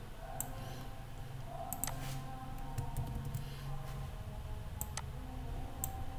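Computer mouse clicking: a handful of short, sharp clicks at irregular intervals, over a low steady hum.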